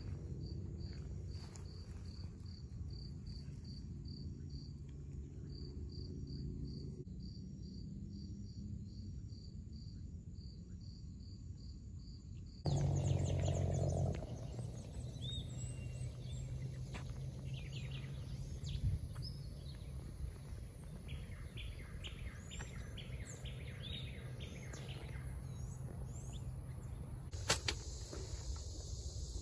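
Night insects chirping in a steady high pulse, about three chirps a second. After a brief louder rush of noise about thirteen seconds in, the sound gives way to daytime outdoor ambience with scattered short bird chirps and a quick trill.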